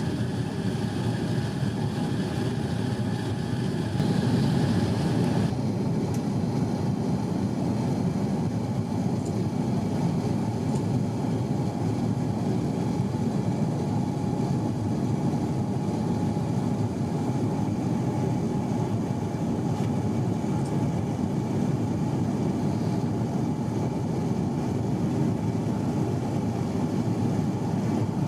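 Airbus A350-900 passenger cabin noise: a steady rumble of engines and airflow, with the higher hiss dropping away sharply about five seconds in.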